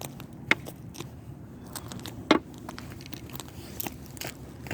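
Irregular crunching and crackling clicks of footsteps on dry ground, the loudest a little past two seconds in.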